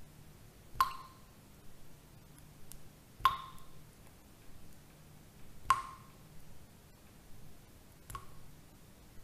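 A sharp ping with a short ring, repeating evenly about every two and a half seconds, four times, over a faint low steady hum.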